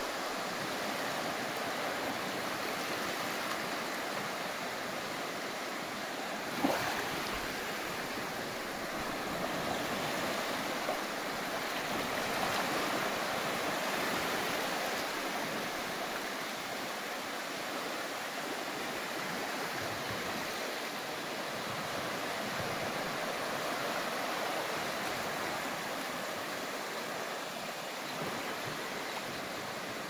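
Small sea waves washing onto a sandy beach, a steady wash that swells and eases gently, with one brief knock about seven seconds in.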